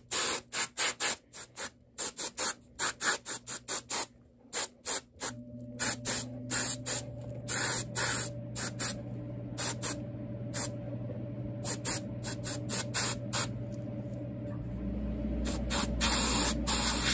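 Airbrush spraying paint in many short hisses in quick succession as the trigger is pressed and let go. A steady low hum comes in about five seconds in.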